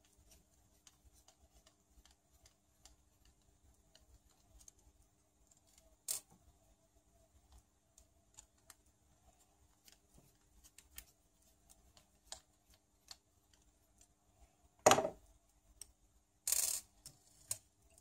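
Small parts being worked by hand: faint, scattered clicks and ticks of a hex driver turning a tiny screw in the plastic wheel hub of an RC buggy. About fifteen seconds in there is one loud knock, followed a second later by a short scraping rustle as the parts are handled.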